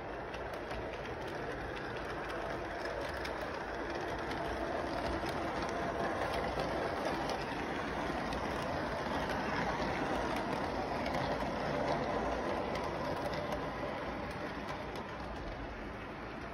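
Electric model train rolling along its track close by: a steady whir of motor and wheels with light rapid clicking, getting louder toward the middle as the cars pass and easing off near the end.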